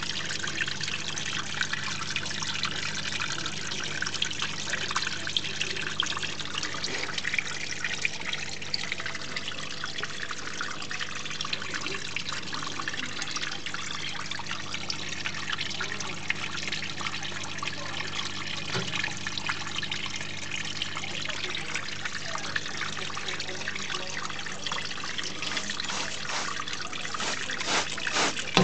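Small terrarium waterfall trickling steadily over rocks into a pebble pool, with a steady low hum underneath.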